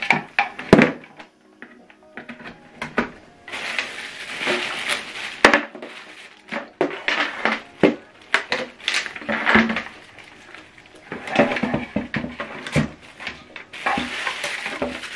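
Handling noise: clear plastic packaging bags crinkling in several stretches, mixed with short clicks and knocks as cables and small speakers are moved about on a table.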